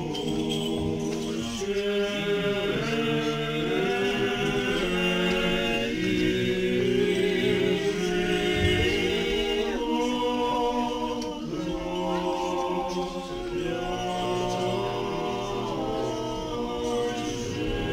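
Unaccompanied choir singing Orthodox liturgical chant, several voices holding chords together and moving to a new chord every second or so.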